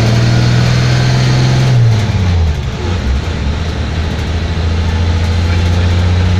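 Bus engine running under way, heard from inside the cabin: a steady low hum whose pitch drops about two seconds in, then holds steady again.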